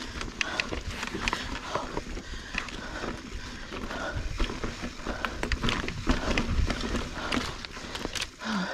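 Mountain bike rolling over rocky dirt singletrack: tyres crunching on dirt and rock, with the bike rattling and knocking over bumps, many sharp clicks through a low rumble.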